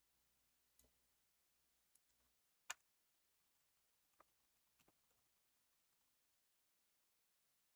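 Faint, scattered keystrokes on a computer keyboard, typing in irregular short runs, with one louder key click a little under three seconds in.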